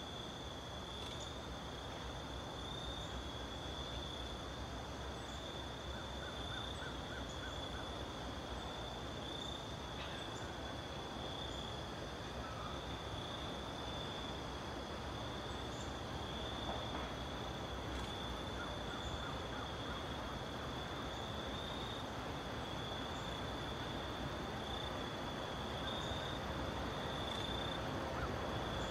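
Steady high-pitched insect chorus trilling, over a low outdoor rumble that grows a little louder near the end.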